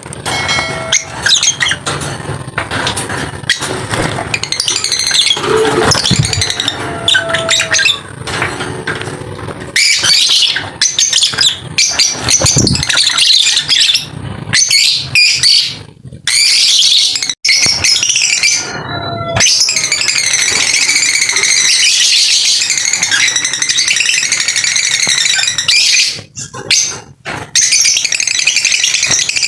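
Lovebirds chirping and chattering, a dense run of shrill, rapid calls with a few abrupt breaks.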